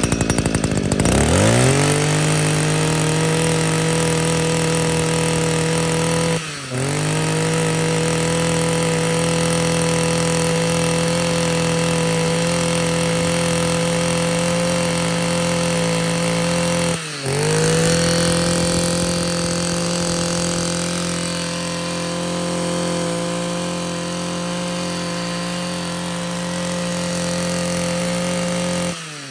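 Echo Kioritz 26 cc two-stroke brush cutter engine revving up from idle about a second in and running at high revs with a steady high whine. The throttle drops and comes back twice, then is let off towards idle near the end.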